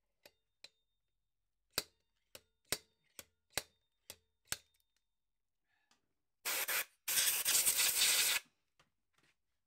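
A slide hammer on a blind bearing puller knocking against the motorcycle wheel hub, about nine sharp metallic knocks in quick succession, as a corroded front wheel bearing is worked out. About six and a half seconds in comes a loud scraping rasp lasting a couple of seconds.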